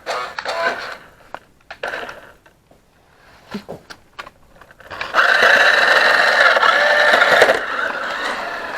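Small electric motor of a toy RC car whirring steadily for about two and a half seconds, starting about five seconds in, after a few brief clicks and knocks.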